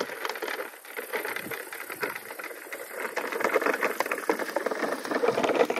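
Large plastic toy dump truck pushed along a bumpy dirt path, its plastic wheels and body giving a continuous clatter of small clicks and rattles.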